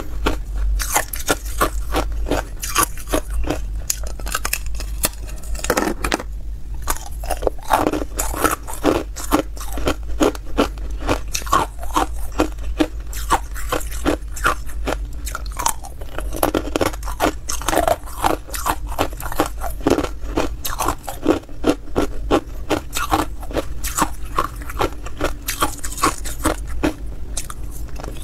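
Ice being bitten and chewed close to the microphone: a rapid run of sharp, crisp crunches and cracks, with a brief lull about six seconds in.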